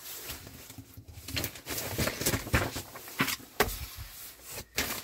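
A paper magazine being handled on a table: irregular rustling with light taps and knocks.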